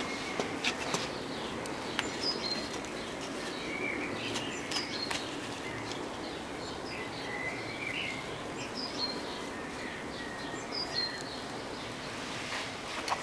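Small birds chirping here and there over a steady outdoor hiss, with a few sharp clicks clustered near the end.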